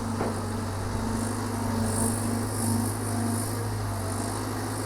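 Excavator diesel engine running steadily under working load, a constant low drone, with brief patches of high hiss.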